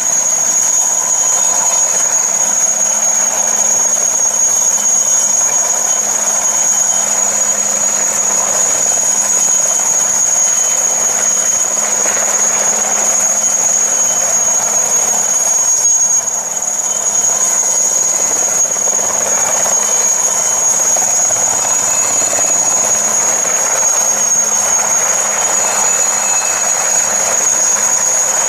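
IAR 330 Puma military helicopter hovering: a steady high turbine whine from its twin turboshaft engines over the continuous rush of the rotor.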